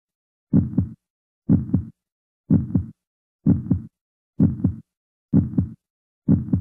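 Heartbeat sound effect: a steady lub-dub double thump repeating about once a second, with silence between beats.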